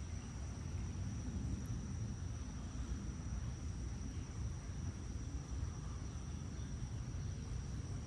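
Outdoor ambience: a steady, unbroken high-pitched insect trill over a low, even rumble.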